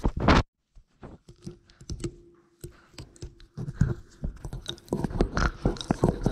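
Labrador puppy mouthing and nosing the camera up close: a loud bump near the start, then a run of irregular wet clicks and chewing noises that grow busier after a few seconds.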